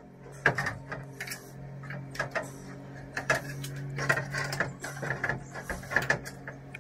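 Irregular clicks, knocks and scrapes of hand work on a VW T2 bay-window camper's steel passenger door, with a steady low hum underneath.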